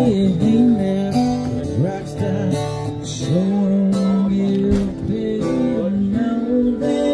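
Music: acoustic guitar strumming with a singing voice.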